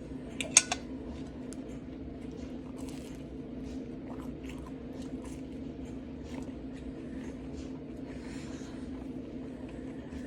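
Person chewing a breakfast of scrambled eggs and English muffin, small wet mouth clicks and soft bites over a steady low hum, with one sharp click about half a second in.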